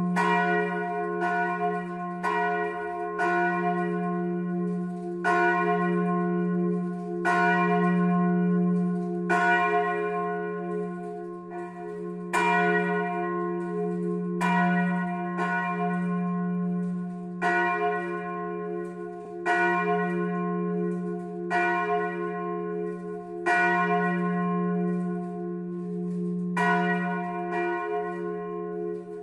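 Church bells ringing the Sunday noon peal: the large F bell swinging and clanging, with the smaller fixed bells struck by hammers. There are strokes about once a second over a low, lasting bell hum.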